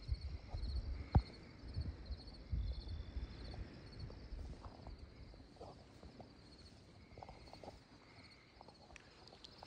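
Footsteps swishing through tall grass, with soft low thuds of footfalls and one sharp click about a second in; the steps thin out and go quieter after the first few seconds. A faint, rapid high chirping runs on in the background.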